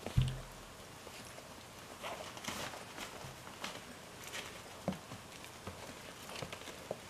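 German Shorthaired Pointer puppies scuffling and wrestling on a blanket in a wooden box: paws pattering and scrabbling, soft rustles and small knocks, with one low thump just after the start.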